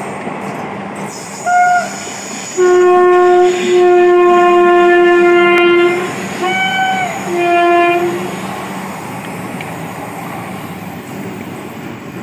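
Indian electric locomotive's air horn, with the rumble of a passing freight train beneath it. The horn gives a short toot, one long blast of about three seconds, then two shorter blasts close together, and the train keeps running steadily afterwards.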